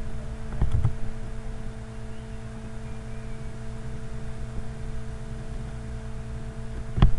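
Steady electrical hum with several fixed pitches, over a low background hiss; two faint clicks about a second in and a sharper single click near the end.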